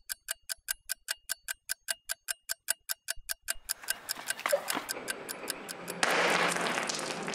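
Rapid watch ticking as a time-travel sound effect, about seven sharp ticks a second, fading out about halfway. A rushing whoosh of noise then builds and swells louder near the end.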